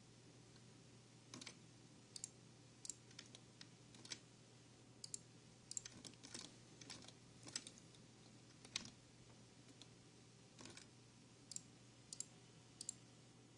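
Faint, irregular clicking of a computer mouse and keyboard, about twenty sharp clicks scattered through, over a faint low hum.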